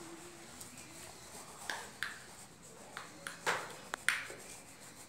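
Fingertip rubbing pencil graphite into drawing paper: a series of short rubbing strokes, about half a dozen, mostly in the second half, with one sharp click just before the end.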